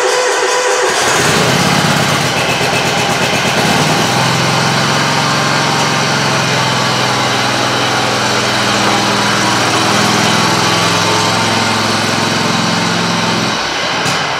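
Scag Tiger Cat zero-turn mower's engine running on a cold start. Its sound changes sharply about a second in, settles into a steady hum from about four seconds in as the mower is driven off, and falls off near the end.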